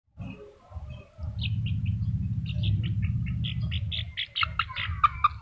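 Quick high chirps and squeaks from small animals, sparse at first and then coming faster and denser toward the end, over a steady low rumble.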